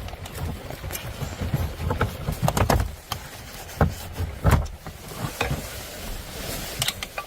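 Irregular light clicks and knocks of a screwdriver and plastic dashboard trim being handled while a screw is taken out.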